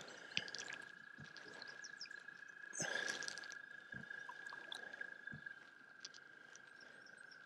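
Faint sounds of a fly cast from a kayak: a soft swish of fly line about three seconds in and a few light clicks of rod and tackle handling. A steady faint high tone runs underneath.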